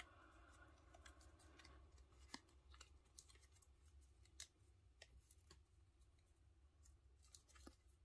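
Near silence, with faint scattered clicks and rustles of a small die-cut cardstock fern being creased between the fingers. The loudest clicks come about two and a half seconds and about four and a half seconds in.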